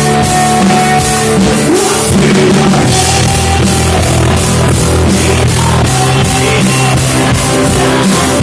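Rock band playing live, loud: a drum kit keeping a steady beat with cymbals under sustained electric guitar and bass.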